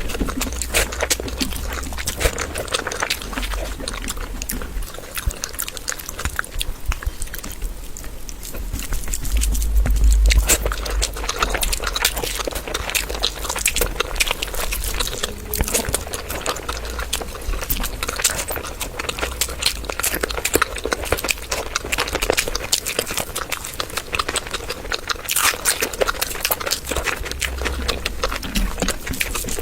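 A person eating: chewing and smacking, with many quick, irregular mouth clicks.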